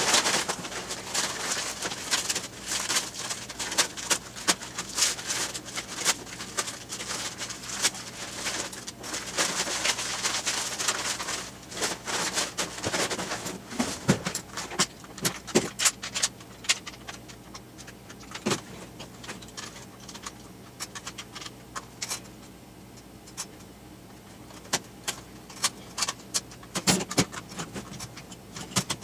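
Sped-up rustling and crinkling of brown packing paper and newspaper pulled out of a cardboard box. After about twelve seconds it gives way to scattered clicks and knocks as an airsoft SAW light machine gun is handled and set down on a table.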